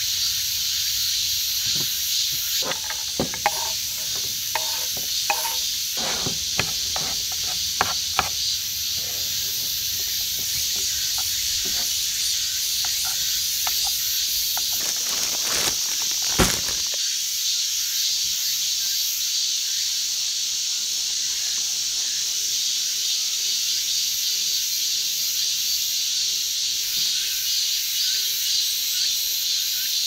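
A chorus of cicadas, a steady high buzz throughout. A quick run of knocks and clatters comes in the first several seconds, and one sharp knock comes about halfway through.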